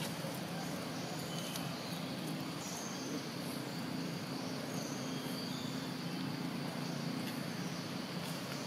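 Outdoor ambience: a steady low hum with short, high chirps scattered throughout.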